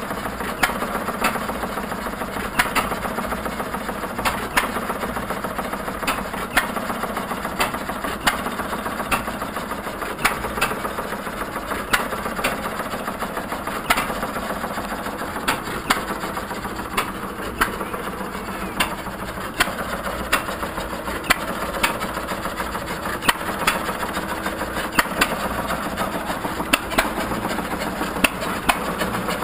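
Several 1937 John Deere single-cylinder hit-and-miss engines running, firing with sharp pops at irregular intervals of about a second as they alternately fire and coast. Under the pops is a steady clatter from the wooden-tub ice cream freezers the engines drive.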